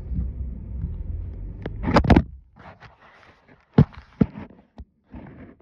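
Low, steady rumble of a car heard from inside the cabin. About two seconds in a loud rustling thud cuts it off, and a few sharp clicks and knocks of handling follow.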